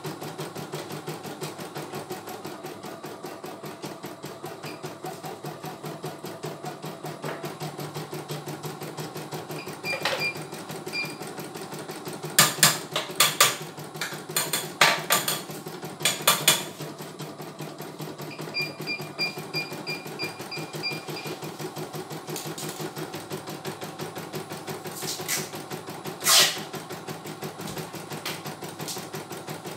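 CNY E900 computerized embroidery machine stitching a design at a fast, steady rate. Several loud sharp clacks come in a cluster in the middle and twice more near the end.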